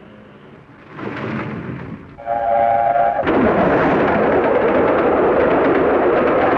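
A steam locomotive's whistle sounds for about a second, then the train rushes past at speed, a loud steady noise of wheels and steam as its coaches go by. Just before the whistle there is a short rumble.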